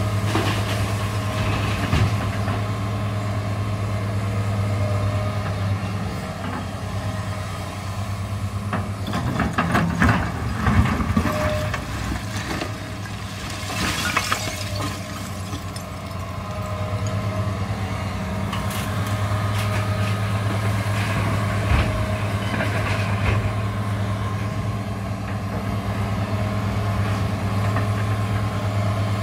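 New Holland E245 crawler excavator's diesel engine running steadily as it works. About ten seconds in the bucket digs into a pile of brick and concrete demolition rubble with a burst of clattering and scraping, followed by a rushing scrape a few seconds later, and there are a few single knocks of debris elsewhere.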